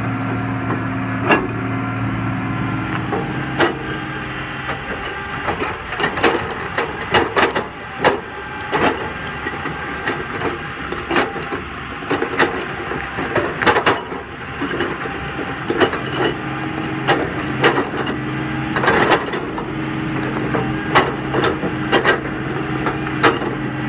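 Excavator-mounted stump cutter working on a stump: wood and roots crack and snap sharply over and over, with the machine's engine running steadily underneath. The engine fades for a stretch in the middle and returns near the end.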